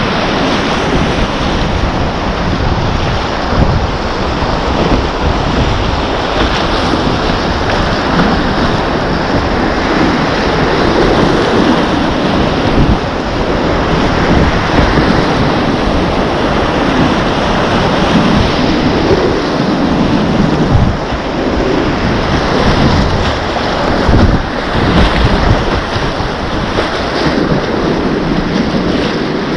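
Whitewater rapids rushing and splashing around a kayak's bow, a steady loud rush with louder splashes now and then, and wind buffeting the microphone.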